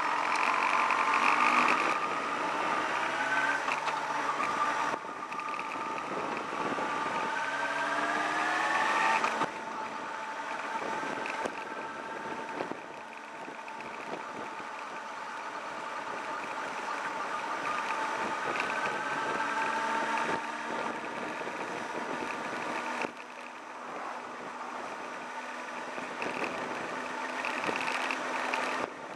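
Sport motorcycle engine heard from on board, pulling away and accelerating through the gears: its pitch climbs and then drops back at each gear change, several times over.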